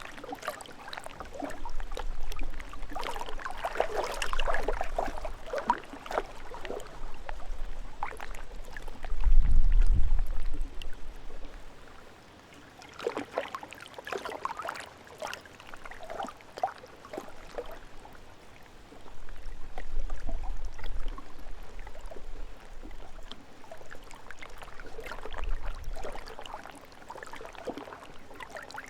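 Lake water flowing and lapping, with irregular splashes and gurgles and a low surge that comes and goes several times, strongest about ten seconds in.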